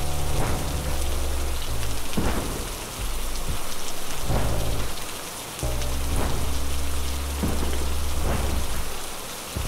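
Dark ambient background music: sustained low notes that change every second or two over a steady rain-like hiss, with swelling whooshes about every one to two seconds.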